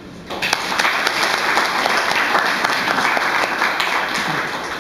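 Audience applauding: many people clapping at once, starting just after the start and dying away near the end.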